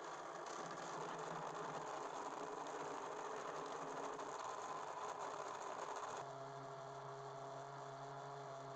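Anex electric blender running, whirring steadily as it blends grapes with ice cubes and cold water into juice. About six seconds in the sound turns smoother, into a steadier motor hum.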